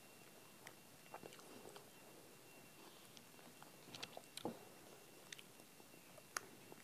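Faint, scattered sharp clicks and crinkles of a small ice-cream cup being handled and its lid peeled off, with a wooden spoon dug into the ice cream near the end.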